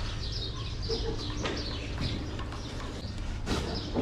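Small birds chirping repeatedly, short falling chirps, over a steady low rumble.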